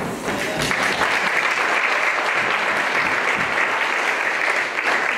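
Audience applauding in a hall: many hands clapping at once, building within the first second into a steady crackle.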